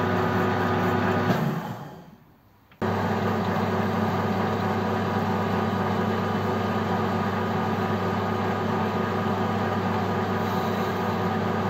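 Metal-turning lathe running with a large aluminium block spinning in its chuck: a steady mechanical hum with several steady tones. The sound fades out about a second and a half in and cuts back in abruptly just under three seconds in.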